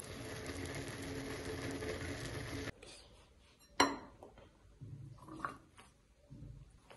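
Instant ramen noodles boiling in a stainless steel saucepan on a gas burner, a steady bubbling hiss that cuts off abruptly under three seconds in. A sharp clink of the metal pot follows about a second later, then soft knocks and scrapes as the noodles are tipped from the pot into a ceramic bowl.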